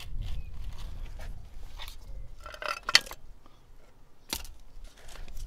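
Light clicks and knocks from handling a front strut's top mount, rubber dust boot and shock absorber as they are taken apart by hand. A sharp click about three seconds in is the loudest, with another knock a little over a second later.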